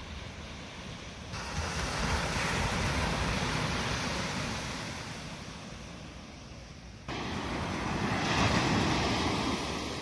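Atlantic surf breaking on a sandy beach: two waves swell up and wash in, the second coming in suddenly about seven seconds in and loudest near the end.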